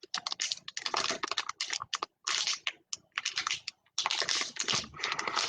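Football trading cards being handled and flipped through, a quick run of papery flicks and rustles in short clusters.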